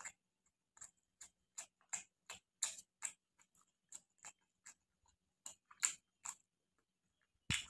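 Faint mouth sounds of a person chewing chicken: regular lip smacks about three a second, with a short pause midway. A louder, deeper sound starts right at the end.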